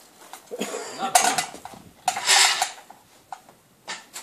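Metal clatter and irregular knocks as a motorcycle is rolled off its stand, with a louder scraping rush about two seconds in and a few sharp clicks near the end. The engine is not running.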